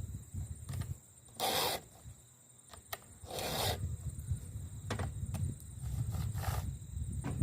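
Hand file being stroked across the cutter teeth of a 3/8" chainsaw chain: two clear filing strokes about two seconds apart and a fainter third near the end, with a few light clicks in between.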